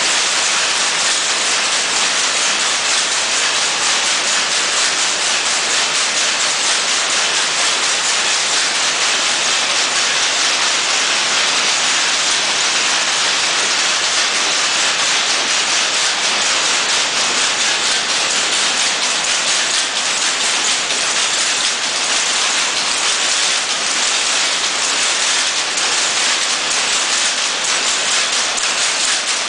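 Jacquard machine and rapier loom weaving at speed: a steady, dense, rapid mechanical clatter with a hissy edge, unbroken throughout.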